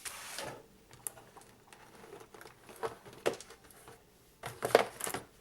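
Plastic packaging and small parts being handled: light rustling and scattered clicks and taps, with a louder cluster of knocks near the end.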